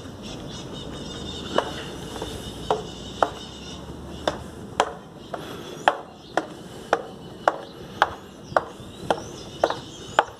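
Footsteps on a hard floor, a sharp even step about twice a second, starting a second and a half in.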